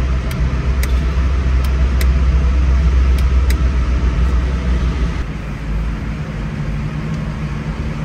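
Toyota Surf driving on a motorway at about 100 km/h, heard from inside the cabin: a steady low rumble of engine and road noise. The deep rumble drops away about five seconds in, leaving a steadier, lighter hum, with a few faint ticks early on.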